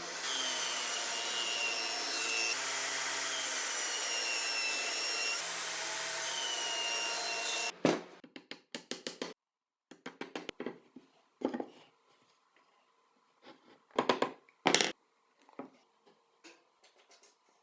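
A power tool working wood runs steadily for about eight seconds, then stops. Scattered wooden knocks and taps follow.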